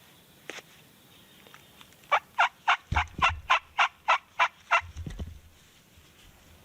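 Turkey yelping: a run of about ten evenly spaced, loud yelps, roughly three to four a second, starting about two seconds in and stopping near five seconds.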